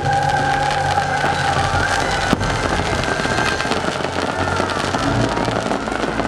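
Fireworks bursting and crackling over loud orchestral show music, with one sharp bang about two and a half seconds in.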